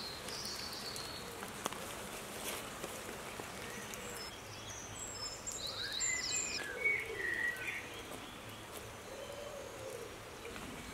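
Faint outdoor ambience: a steady hiss with birds calling, a few short chirps and whistled calls about five to eight seconds in.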